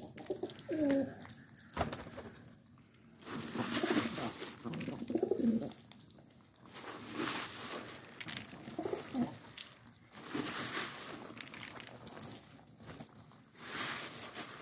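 Domestic pigeons cooing in low, wavering calls several times over a scratchy rustle as the flock pecks at cracked maize on a concrete floor.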